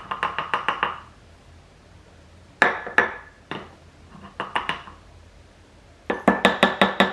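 Measuring spoon tapping against a ceramic ramekin with ringing clinks. A quick run of about seven taps a second at the start, two single clinks near the middle, then another quick run near the end.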